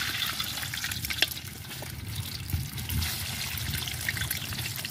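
Boiled egg halves frying in hot oil in a wok: a steady sizzle full of small pops and crackles.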